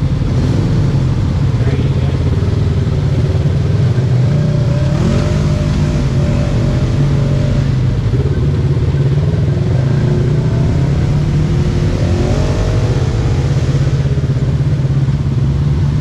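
Off-road vehicle engines running at low trail speed: a steady low drone, with a few brief rises and falls in pitch.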